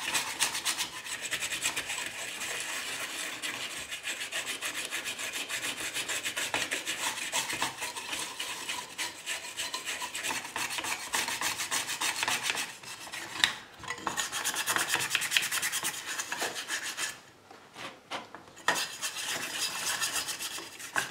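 A cotton swab scrubbing rapidly back and forth over the tinplate body of a toy locomotive, making a dense, rasping rub. The swab is wetted with white spirit to lift the grime. The scrubbing breaks off briefly twice in the second half.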